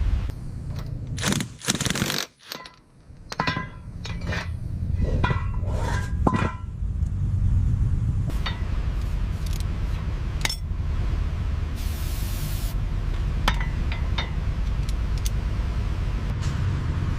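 Metal clinks, knocks and scrapes of workshop tools over a steady low rumble, with a short burst of hiss past the middle.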